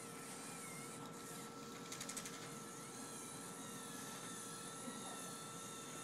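Small electric motors and plastic gearing of a remote-control LEGO dump truck whirring as it drives, with a faint whine that rises and falls with speed. A quick run of clicks comes about two seconds in.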